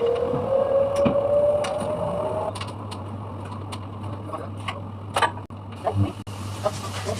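Dry-cleaning machine running: a steady motor hum with a rising whine that stops abruptly about two and a half seconds in, and scattered clicks and knocks.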